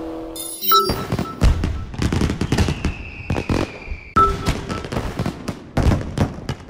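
Fireworks bursting and crackling in quick, irregular bangs, with a thin whistle falling slowly in pitch in the middle.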